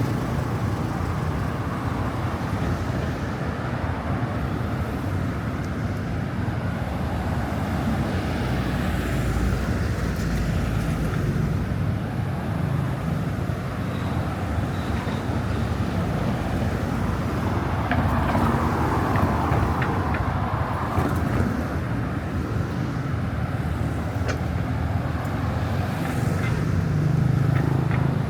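Busy city street traffic: a steady low rumble of car engines and tyres passing, with no single sound standing out.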